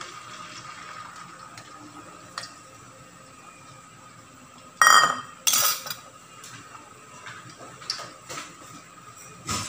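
Metal knocking against a stainless steel frying pan: two loud ringing clanks about five seconds in, followed by a few lighter taps and a duller knock near the end.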